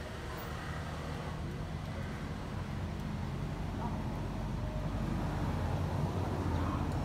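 Steady low hum of a running motor, growing slowly louder.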